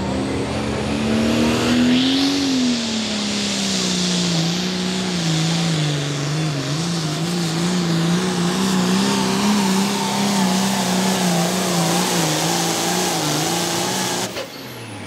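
Turbocharged diesel engine of an International Harvester Super Pro Farm pulling tractor running at full load through a pull. The engine note climbs about two seconds in, then drops and wavers as it works against the sled, and the sound cuts off just before the end.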